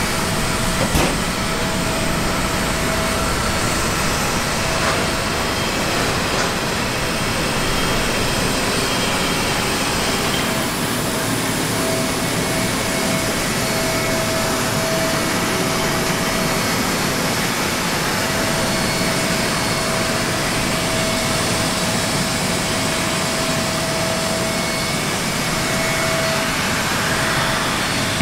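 Steady roar of turbine machinery running on an airport apron, with a whine held at one pitch that fades in and out. A brief knock sounds about a second in.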